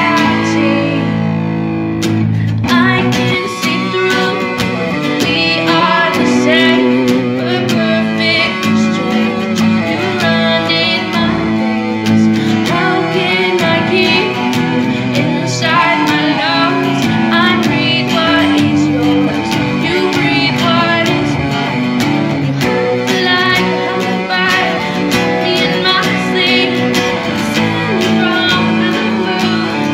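A woman singing a cover song to her own strummed acoustic guitar.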